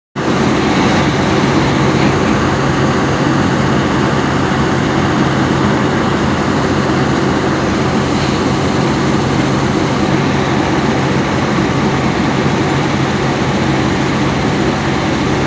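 Excavator's diesel engine running steadily under work, a constant low hum that holds the same level throughout.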